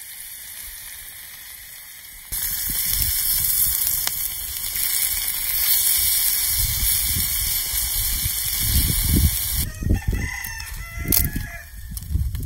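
Meat and onions sizzling on a fire-heated flat rock, close to the microphone, loud and steady from a couple of seconds in, with low rumbling thumps. About ten seconds in, a rooster crows.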